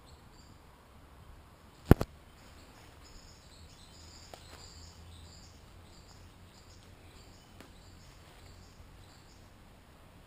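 Birds calling with short, high chirps repeated over several seconds, after two sharp knocks about two seconds in.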